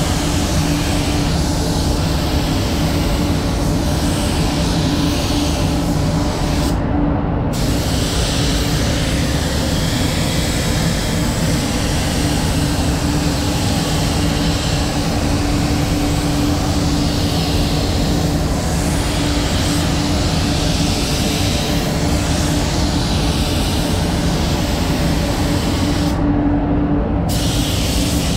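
SATA 5000 RP Phaser spray gun hissing as it lays on waterborne black base coat, its air cutting off briefly twice, about seven seconds in and near the end, as the trigger is let go. Under it runs the steady hum of the spray booth's ventilation, with one low steady tone.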